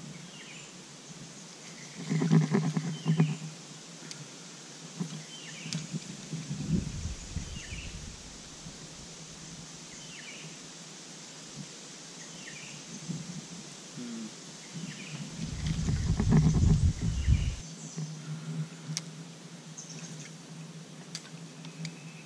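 Creek-side bush ambience: a bird repeating a short chirp about once a second over a steady high hiss, with two louder bursts of low rumbling noise, about two seconds in and again near the fifteen-second mark.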